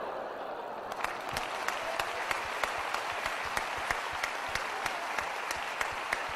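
Theatre audience applauding, building up about a second in. A few close, sharp claps stand out from the rest at a steady pace of about three a second.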